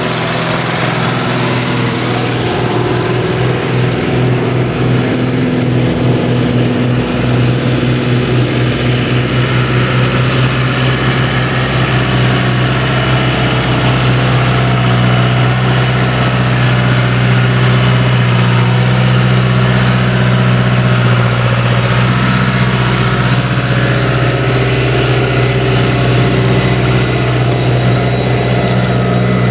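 Diesel farm tractor engines running steadily while pulling mouldboard ploughs through wet, muddy ground.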